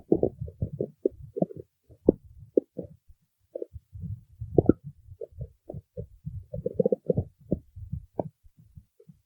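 Human stomach growling: a run of short, irregular gurgles and pops, with a brief pause about three seconds in.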